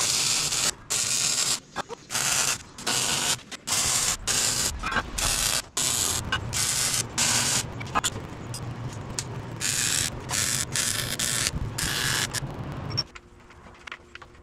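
Miller MIG welder tacking and running short beads on steel square tube: repeated bursts of hiss, each under about a second, starting and stopping over and over, then stopping about thirteen seconds in.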